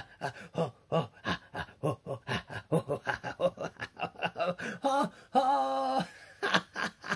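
A man's rhythmic chanted laughter, short breathy 'ho' and 'ha' bursts about four to five a second, imitating a steam locomotive's chugging. About five seconds in comes one held vocal hoot lasting about half a second, before the chugging laughter resumes.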